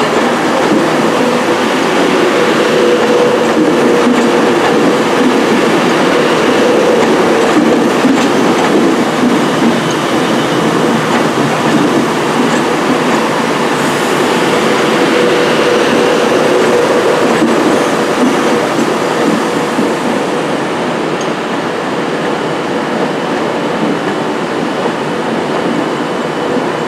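Class 390 Pendolino electric train running past along a station platform: a steady rumble of wheels on rails with a steady tone underneath.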